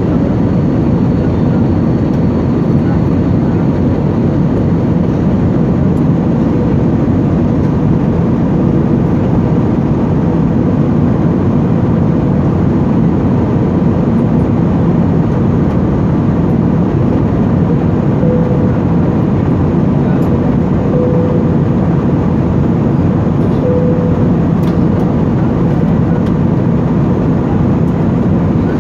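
Steady, unchanging cabin noise of a passenger jet airliner, the engines and rushing air together as an even low drone.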